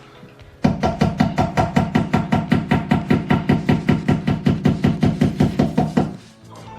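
A hammer striking flat-pack computer desk parts in a fast, even run of blows, about five a second, starting about half a second in and stopping abruptly near the end.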